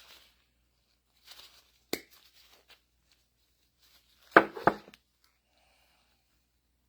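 Rubber O-ring being cut by hand to make a makeshift gasket: a short rustle, a sharp snap about two seconds in, then two louder snaps close together a couple of seconds later.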